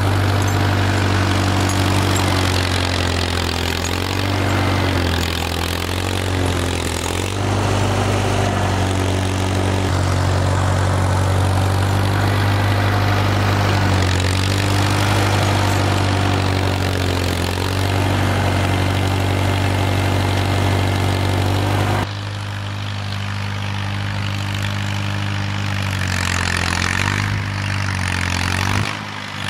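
Vehicle engine running steadily, its pitch dipping briefly a few times as load comes on. The sound changes abruptly about three-quarters of the way through to a quieter engine sound.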